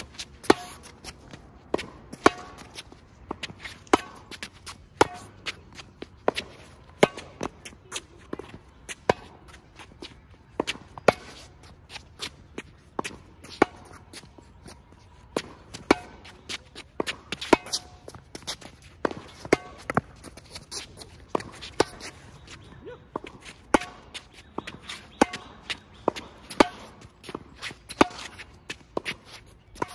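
Tennis rally of volleys on a hard court: sharp pops of the ball hitting racket strings about once a second, some loud and some fainter.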